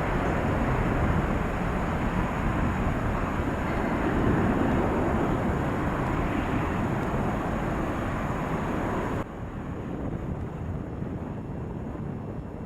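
Boeing 747 jet engines running with a steady, dense noise, heard from the ground. The sound drops suddenly and stays lower from about nine seconds in.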